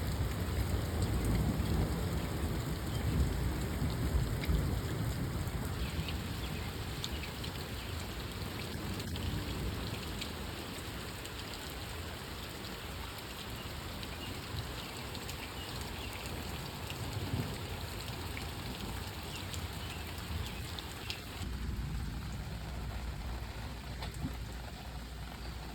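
Steady rain falling in a storm, a continuous hiss with scattered drop ticks. A low rumble of thunder sits under it for the first few seconds.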